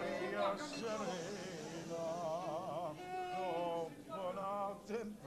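Operatic singing with a wide vibrato, in several short sung phrases.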